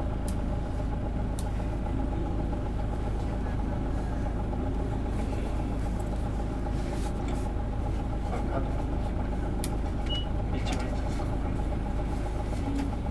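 Isuzu Erga PJ-LV234L city bus's inline-six diesel engine running at a steady pace, heard from inside the cabin as a low drone with a steady whine over it. Scattered sharp clicks and rattles sound through it.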